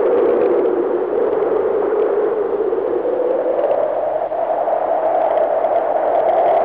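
Synthesized rushing-noise sound effect for an animated logo intro: a steady wind-like hiss whose pitch slowly rises.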